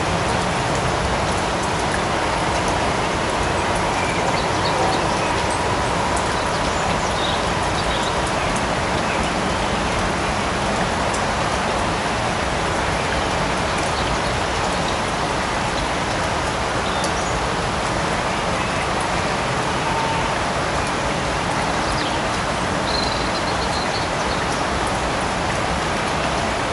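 Steady light rain falling in a forest, an even hiss of drops with no let-up, and a few faint short high notes over it.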